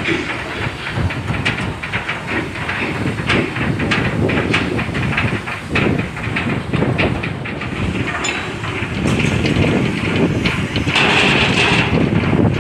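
Shipyard work noise: a steady mechanical din full of irregular metallic knocks and clanks, getting louder and hissier near the end.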